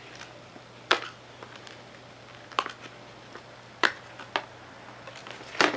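Knife cutting a cat toy free from its packaging: several short, sharp clicks and snaps, about a second apart.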